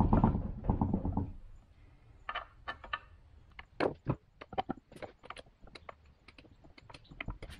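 Hands handling the cast-iron gearbox case of a 1960s Craftsman riding mower at first, then a flat-blade screwdriver scraping the case's cast-iron mating surface clean: a string of short, sharp scrapes and clicks.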